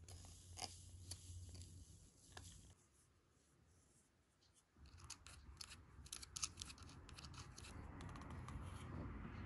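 Foil seal peeled off a small plastic cup of red jelly mix with a light crinkly hiss. After a short pause, a plastic spoon scrapes and clicks rapidly against the plastic cup as it scoops out the jelly.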